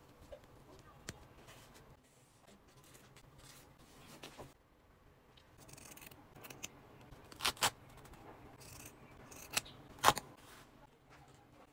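Scissors snipping through a pleated non-woven disposable face mask: a few sharp snips, two close together about halfway through and the loudest near the end, with soft handling rustle of fabric between.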